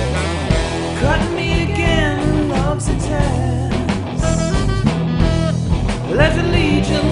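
Rock song played by a full band: electric guitars, bass guitar and drums.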